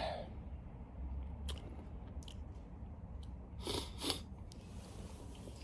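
Faint mouth clicks, then two short sniffs about three and a half and four seconds in, from a man in the middle of a fit of repeated sneezing, over a low steady room hum.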